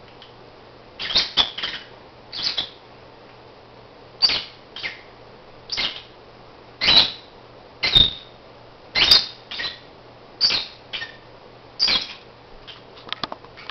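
Black-masked lovebird snoring: short raspy hisses about once a second, some in quick pairs. A cluster of small clicks comes near the end.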